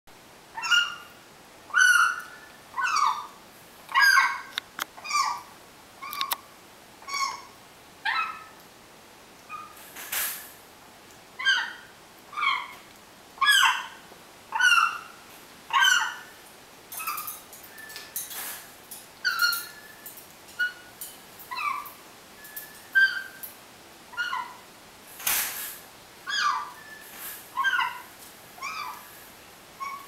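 African grey parrot making short, pitched squeaky calls about once a second while it feeds from its bowl, with two brief noisy bursts about ten seconds in and again near twenty-five seconds.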